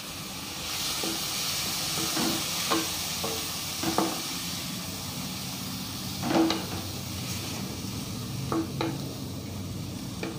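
Shredded cabbage sizzling in hot oil in a metal kadai as a wooden spatula stirs it, with scattered knocks and scrapes of the spatula against the pan. The loudest knock comes a little past the middle.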